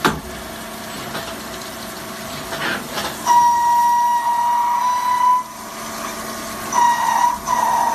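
CNC lathe machining with cutting oil flooding the workpiece: a hiss of oil and chips, then a high steady whine from the cut that starts about three seconds in, stops near the middle and comes back near the end.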